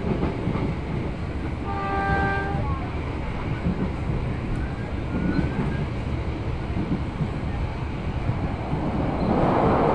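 Local passenger train running, heard from inside the carriage: a steady low rumble of the running gear on the rails. A short horn note sounds about two seconds in, and a louder rushing swell comes near the end.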